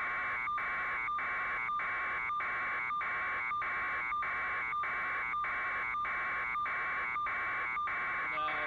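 An electronic buzzing tone that cuts out briefly at an even pace, a little under twice a second, at a constant level.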